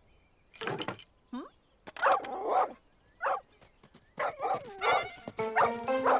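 Cartoon collie barking several times in short, separate barks, with background music coming in near the end.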